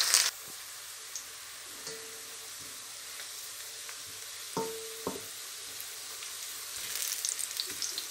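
Sliced onions frying in oil in a stainless steel wok as they brown, stirred with a wooden spoon. A loud sizzle drops suddenly just after the start to a quieter steady sizzle, with two knocks of the spoon against the pan about halfway through and livelier crackling near the end.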